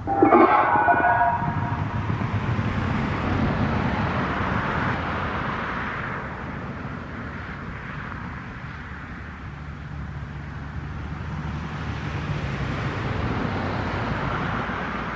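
Road traffic going by: a rumbling noise that swells, fades and swells again as vehicles pass. A short pitched tone sounds at the very start and is the loudest moment.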